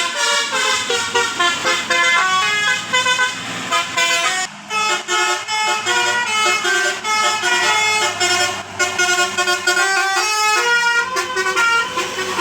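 Bus telolet: a Basuri musical air horn playing a quick tune of short, stepping notes, broken off briefly twice.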